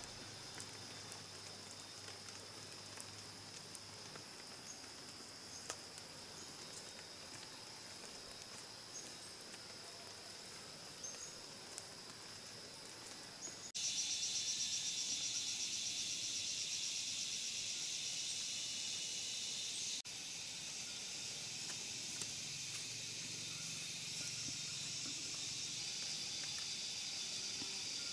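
Forest insect chorus: steady high-pitched buzzing of cicadas and crickets, with a few light taps in the first half. About halfway through it jumps to a louder, rapidly pulsing insect buzz, which eases somewhat several seconds later.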